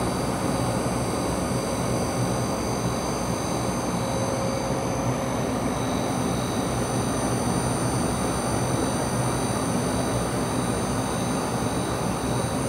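CNC router spindle running at speed with a steady high whine, over a steady rushing noise. The machine is running its job in the air without cutting any material.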